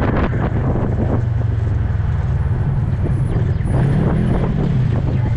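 Polaris RZR side-by-side's engine running under way, its note rising a little about four seconds in, with a few short knocks, the clearest in the first second or so.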